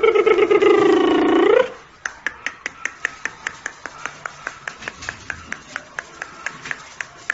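A corgi puppy's drawn-out howl, about two seconds long, sagging slightly in pitch and then rising just before it stops. After it comes a quieter run of light, even clicks, about four a second.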